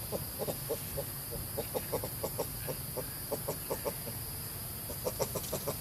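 Long-tailed macaque calling during mating: short, clucking calls in quick runs of several a second, coming in four bursts.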